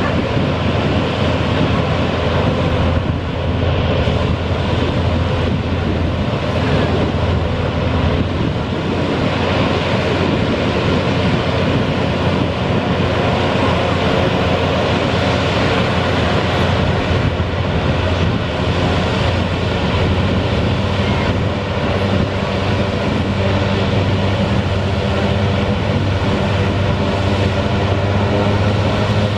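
Canadian Coast Guard hovercraft Siyay running close by: a loud, steady drone of its engines, lift fan and big ducted propellers, with a low hum that grows stronger near the end.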